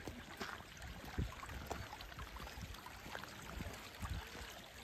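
Faint, steady rush of a shallow stream of hot geothermal runoff water flowing over rock, with a few soft low thumps.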